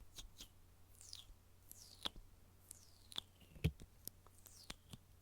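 Fingernails tapping and scratching on a box: scattered sharp clicks and a few quick scratching strokes, with one louder, deeper tap about two-thirds of the way through.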